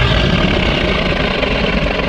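Tyrannosaurus rex roar sound effect: a loud, drawn-out rumbling roar with a heavy low end.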